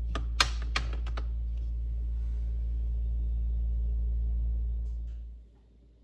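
A steady low hum with a quick run of about five sharp clicks in the first second; the hum cuts off suddenly near the end.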